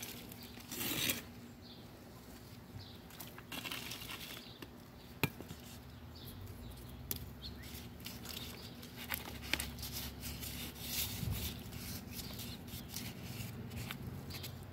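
Hand trowel scraping and tossing loose garden soil into a plastic pot to backfill around a transplanted tomato, in short scuffs and rustles with a few sharp clicks.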